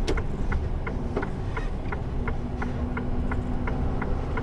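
Lorry cab with the diesel engine and road noise running in a steady drone. Over it the turn indicator relay ticks evenly, about three clicks a second.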